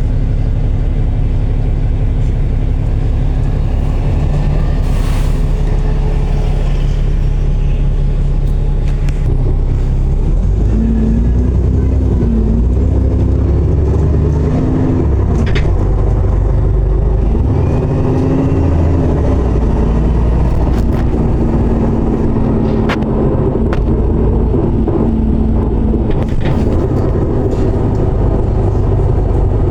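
Alexander Dennis Enviro400 double-decker bus running, with a steady engine note that changes about ten seconds in. From then on a whine wavers up and down in pitch, the odd noise this bus makes.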